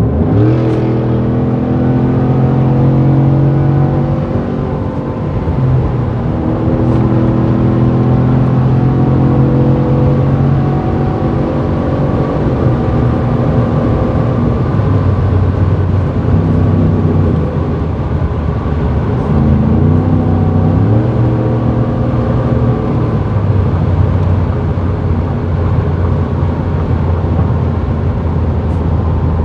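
Ford F-150's 5.0 V8 through a newly fitted Borla cat-back exhaust, heard while driving: a deep engine note whose pitch steps up and down several times as the truck is pushed.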